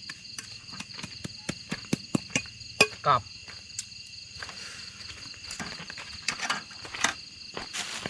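Night insect chorus, crickets trilling steadily on several high pitches, with scattered clicks and knocks from a metal bowl and plastic bags being handled on a camp table.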